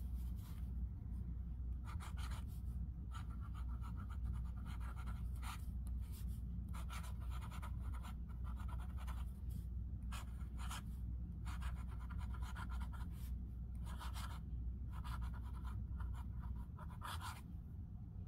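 Fountain pen nib scratching across paper in a series of short strokes as words are written out. The pen is a Visconti Viscontina with a 14k gold medium nib ground to an Architect. A steady low hum runs underneath.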